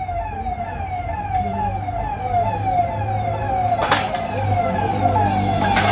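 Siren-like wail that falls in pitch and snaps back up about two and a half times a second, over a steady low hum, with two sharp knocks about four seconds in and near the end.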